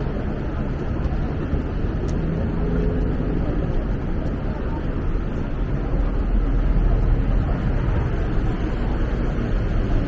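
City street ambience: a steady low rumble of traffic noise, swelling slightly about six seconds in.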